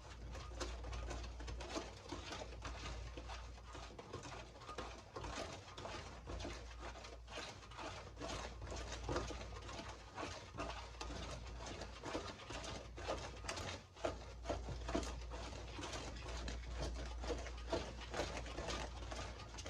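Wire whisk beating cake batter in a bowl: a continuous run of quick, irregular clicks and scrapes.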